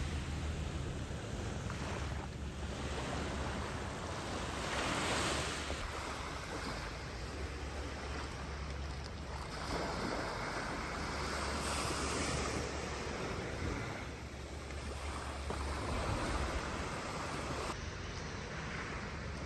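Sea waves washing onto the shore, swelling and fading every few seconds, with wind rumbling on the microphone.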